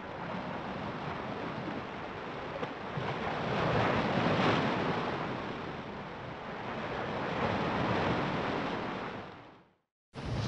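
Rushing, surf-like water sound effect that swells louder twice and then fades away near the end.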